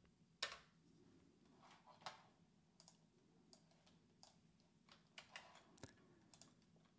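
Faint, scattered computer keyboard key presses: a few single clicks spread apart, then a short cluster of them near the end.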